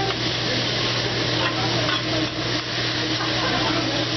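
Vegetables sizzling steadily on a hot hibachi griddle as they are stirred and tossed with a metal spatula, with faint light scraping clicks of the utensils on the steel. A steady low hum runs underneath.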